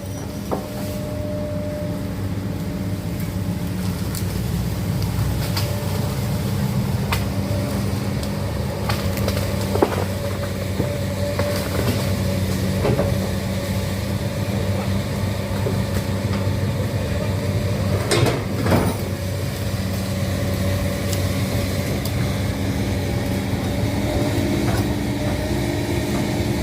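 Komatsu PC200-8 excavator's diesel engine running steadily under work, with a few short knocks, twice in quick succession about two-thirds of the way through.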